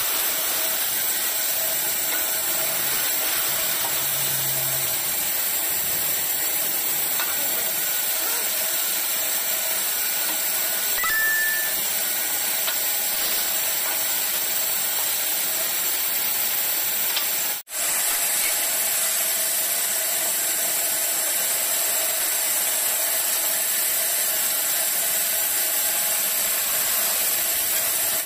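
Woodworking bandsaw running steadily, a constant whir with much hiss in it; it breaks off for an instant about two-thirds of the way through.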